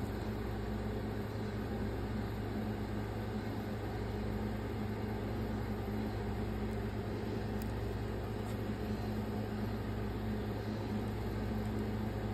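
Steady low mechanical hum with an even hiss, like a running fan or appliance.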